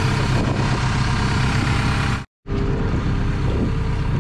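Hydraulic excavator's diesel engine idling steadily. The sound drops out for a moment a little past two seconds in, then a steady engine drone goes on.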